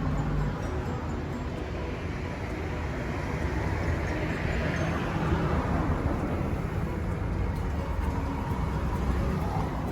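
Road vehicle noise: a steady rumble with a rising and fading swell of noise around the middle.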